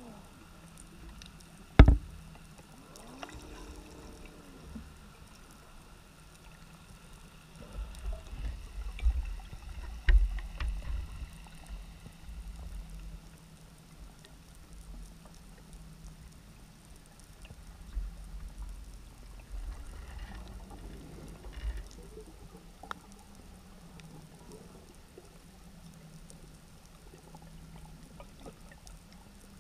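Muffled underwater sound heard through a dive camera housing: low rumbling surges of water and bubbles under a faint steady hum, with one sharp knock about two seconds in and a few light ticks.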